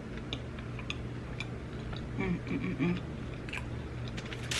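A person chewing food close to the microphone: scattered wet mouth clicks and smacks, with a short hummed "mm" about two seconds in.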